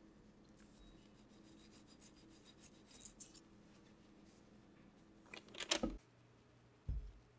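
Soft scraping and rubbing on a baked sponge cake sheet lying on parchment paper, in light scratchy strokes, with a louder brief rustling scrape about five and a half seconds in. About a second later comes a soft dull thump.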